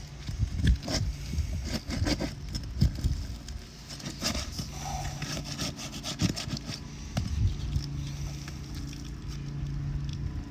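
Irregular scraping, crackling and knocking of a tool working under asphalt roof shingles, prying them loose and tearing the sealed tabs apart. A steady low hum runs underneath at times.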